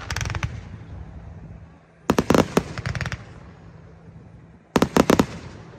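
Aerial fireworks shells bursting in quick groups of sharp bangs: one group just after the start, another about two seconds in, and a third near the end, each fading away before the next.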